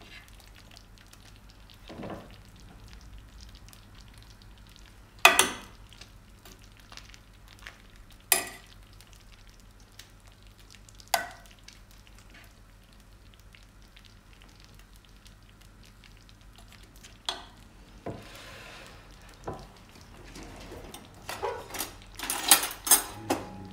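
Metal serving spoon scraping and knocking against a dish of hot stew and a plate, with a few separate sharp clinks. Near the end, a cutlery drawer is opened and metal cutlery rattles and clatters.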